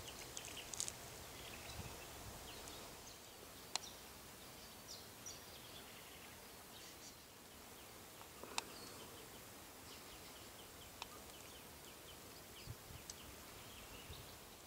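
Quiet bushland ambience: faint, scattered high chirps over a low steady hiss, with a few sharp ticks.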